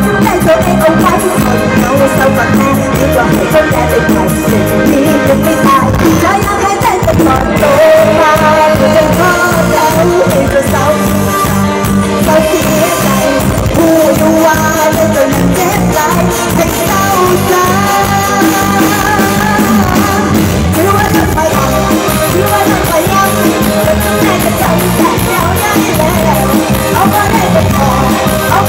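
Loud live Thai luk thung band music with a steady beat, played through a concert sound system.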